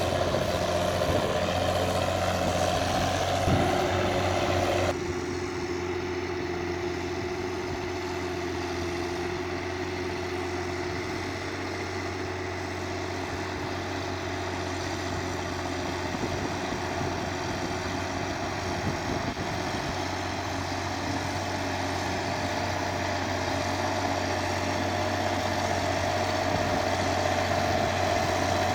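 Case 1694 tractor's diesel engine running steadily under the load of a four-furrow plough. A higher tone in the engine note drops away suddenly about five seconds in, the sound turning a little quieter, and returns near the end.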